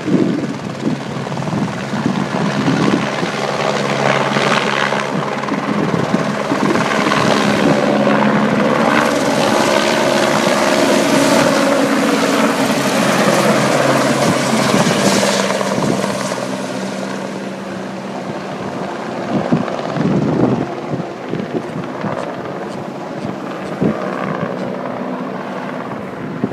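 Helicopter passing, a steady pitched drone over rushing noise. It is loudest in the first half, then its pitch falls a little and the sound fades in the second half.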